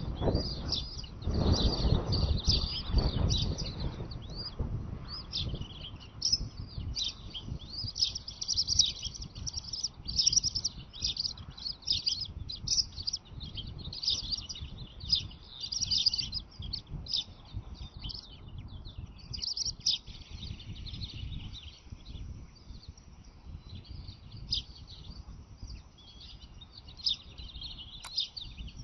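Bird chirping, rapid and high-pitched, running on throughout and thinning out after about twenty seconds. A low rumble sits under it in the first few seconds.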